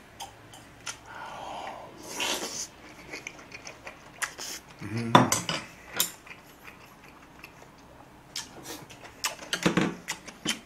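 Spoon and utensils clinking and scraping against a plate and bowl while eating, as sharp scattered clicks, with a few short vocal murmurs from the eater.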